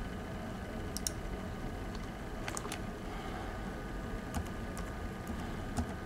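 Light clicks and taps of fingers working a laptop, about seven sharp ticks, mostly in pairs, over a steady low hum.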